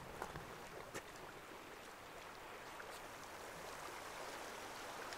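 Faint steady hiss of the sea washing over a rocky shore, with a couple of light ticks in the first second.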